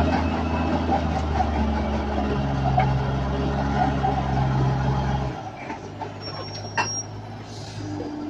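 Heavy vehicle engine running steadily, then giving way about five seconds in to a quieter low hum, with a brief high-pitched beep a little after six seconds.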